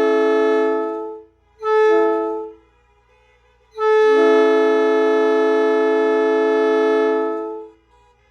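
Train horn sounding a chord of several notes in three blasts: one cutting off about a second in, a short blast around two seconds in, and a long blast of about four seconds near the end. The owner has been told it is a Nathan P5 but is unsure.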